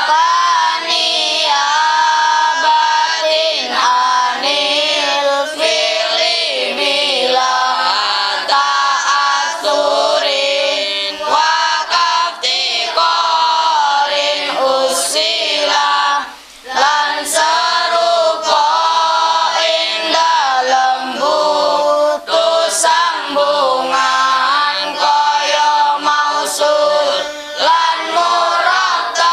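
A class of children chanting in unison, singing the Arabic verse (nazham) that states the grammar rule for isim mausul to a repeating melody.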